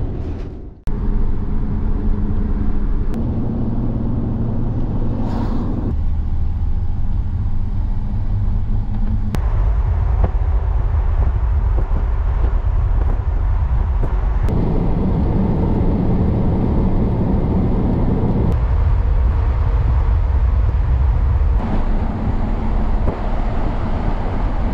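1999 Ford Ranger pickup driving on the highway: steady engine and road noise. The noise shifts abruptly in level and tone several times as separate driving shots are cut together.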